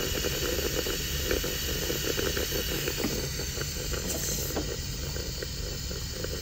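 Steady hissing noise with faint light ticks scattered through it.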